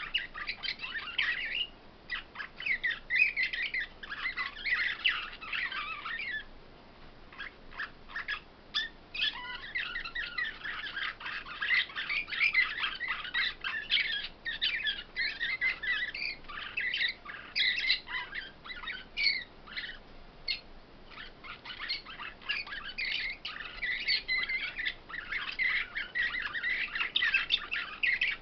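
Caged songbirds singing in rapid chirping trills, with a short lull about six seconds in before the song picks up again.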